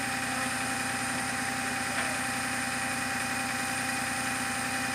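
Flatbed tow truck's engine idling steadily.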